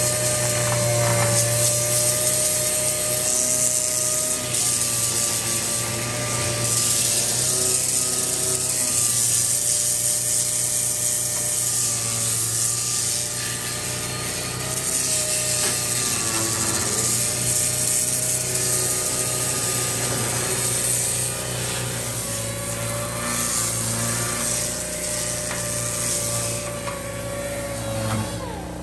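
Pneumatic DA sander with a 40-grit disc grinding pitted, peeling chrome off a steel bumper down to bare metal. It makes a continuous high whine with a gritty rasp, and the pitch sags and recovers as the disc is pressed into the metal. It winds down just before the end.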